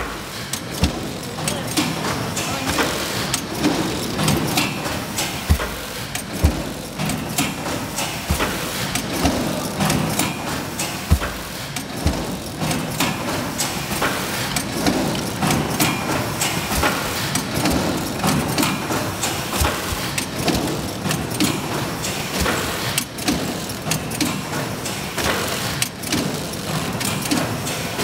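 Microwave popcorn bag packing and wrapping machine running: a steady mechanical clatter with many quick clicks and knocks.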